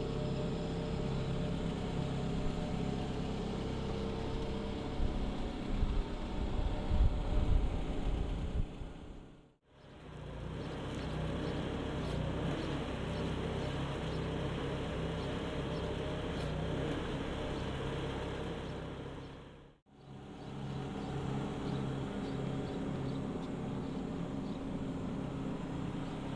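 Jungheinrich TFG 425s LPG forklift engine idling steadily with the truck standing still. A louder, uneven low rumble comes about five to nine seconds in, and the sound dips out briefly twice.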